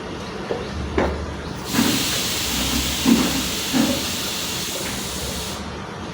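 A loud, steady hiss that starts suddenly about two seconds in and cuts off about four seconds later, with a few dull thuds under it and two clicks just before it.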